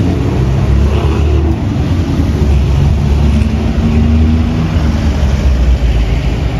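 Road traffic passing on a busy street: a steady, loud low rumble of car and truck engines and tyres, with one vehicle's engine hum standing out for a couple of seconds in the middle.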